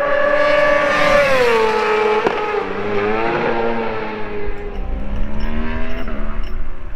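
Supersport race motorcycle going past at speed on the main straight, its high-revving engine note dropping steeply in pitch about a second and a half in as it goes by. A low rumble takes over in the second half.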